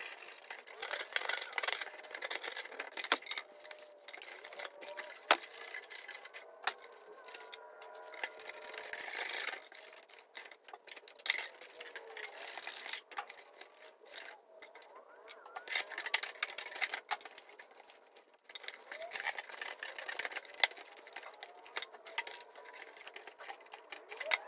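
Hand-tool woodworking on a dresser's drawer frame: irregular cutting and scraping at the wood with scattered clicks, louder for a stretch about eight seconds in and again around sixteen seconds. The wood is being cut back so the tabs of a plastic drawer guide can sit flush.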